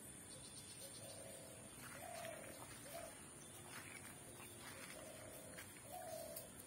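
Faint dove cooing: a phrase of three short notes, the last one shortest, heard twice, a few seconds apart. A steady high-pitched tone runs behind it.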